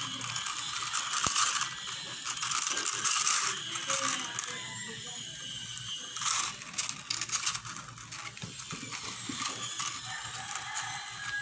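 Thin plastic of a cut-open PET soft-drink bottle crinkling and crackling as it is bent and folded by hand, in irregular flurries.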